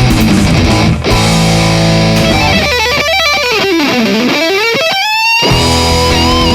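Rock music led by electric guitar. About two and a half seconds in, the backing drops away while a lead line slides down in pitch and back up. The full band comes back in about five and a half seconds in, under a held high guitar note with vibrato.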